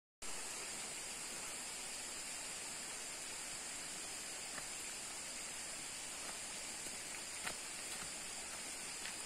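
Steady rushing of a flowing hill stream, with a few faint clicks.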